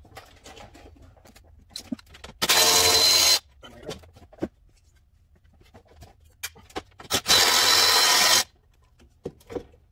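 Cordless electric ratchet running in two bursts of about a second each, the first about two and a half seconds in and the second about seven seconds in, spinning out the condenser fan's mounting bolts. Light clicks and knocks of the tool and bolts being handled fall between the bursts.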